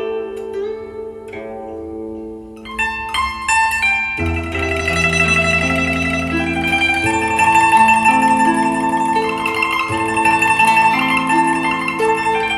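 Instrumental music led by a plucked string instrument, played back over a Trio-Kenwood KA-3006 amplifier and JL-700 speakers. Sparse plucked notes open it, and about four seconds in a fuller accompaniment with a steady bass comes in.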